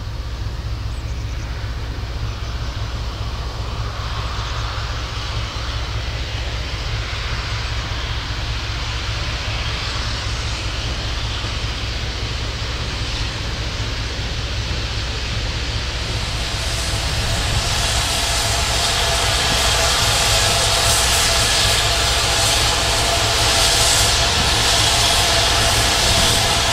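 Steam train of GWR Saint class 4-6-0 No. 2999 and four coaches rolling into the platform, its sound building steadily. About two-thirds of the way through, a hiss and steady high ringing tones come in and grow louder as the coaches come close.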